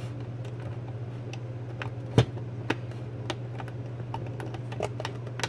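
Small plastic switch on the back of a Nelsonic Castle Grayskull alarm clock being worked back and forth by fingers, giving a string of irregular small clicks, the loudest about two seconds in, over a steady low hum.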